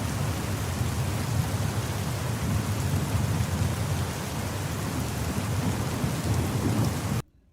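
Steady heavy rain: an even hiss with a low rumble underneath, which cuts off suddenly near the end.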